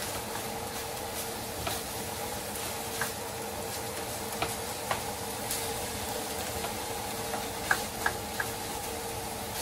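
Spatula stirring ground pork and vegetables frying in a nonstick pan, with a low sizzle and a steady hum, and the spatula clicking against the pan now and then, loudest in a quick cluster of clicks about eight seconds in.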